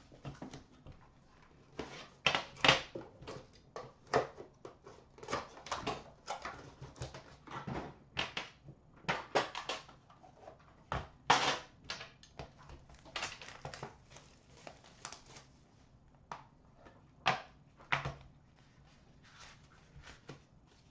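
A sealed hockey card box being unwrapped and opened by hand: packaging rustling and crinkling, with irregular sharp clicks and light knocks of the cardboard box and its lid.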